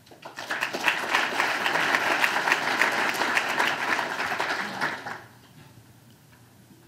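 Audience applauding, a dense patter of many hands clapping that builds within the first second and dies away about five seconds in.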